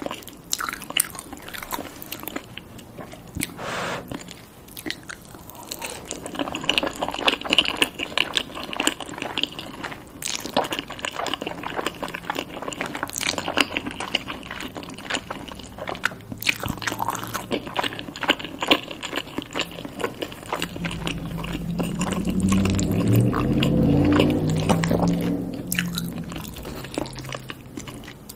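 Close-miked biting and chewing of fries smothered in sauce and melted cheese, a steady run of short mouth clicks. A louder low pitched sound swells for a few seconds near the end.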